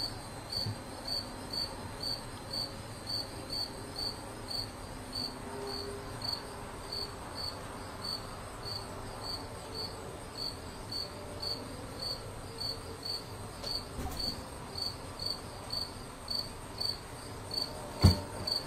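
A cricket chirping steadily, short high-pitched chirps about two a second. Near the end comes a single sharp thump.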